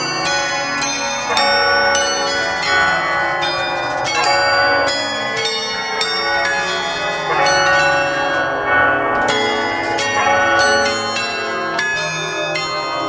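Bells pealing as music: a dense run of struck bells, two or three strikes a second, each ringing on under the next.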